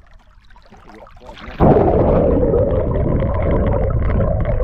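After a quiet start, a loud, steady, muffled rush of water begins suddenly about a second and a half in, heard through a camera held underwater beside a sailing catamaran's hull and rudder as the boat moves.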